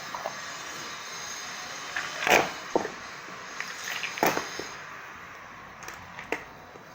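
Slime being handled and squished, giving two sharp wet pops and a few fainter clicks over a steady hiss.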